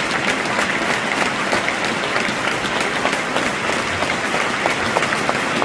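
Football stadium crowd applauding steadily, thousands of hands clapping at once in a minute's applause.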